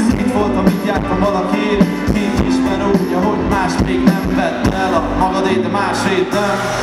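Live pop band music filmed from the crowd, with drums, bass guitar and electric guitar playing a steady beat.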